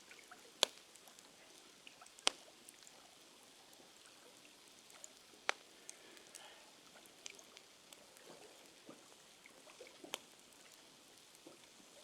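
A few sharp, isolated clicks or taps at irregular intervals over a faint steady hiss. The two loudest come about half a second and two seconds in, with others later.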